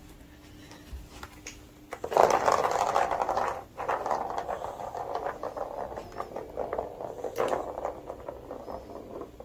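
A ball rolling and rattling fast around a plastic figure-eight cat track toy, knocked along by cats' paws. The rolling starts about two seconds in, drops out briefly, then runs on with small knocks.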